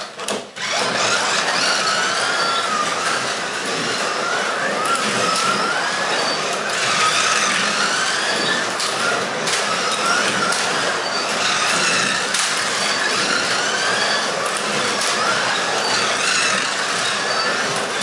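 Electric motors of 1/24-scale Carrera Digital Ferrari P4 slot cars whining as they lap the track, the pitch rising and falling again and again as the cars speed up and brake for the corners, over a steady hiss of the cars running in the slots.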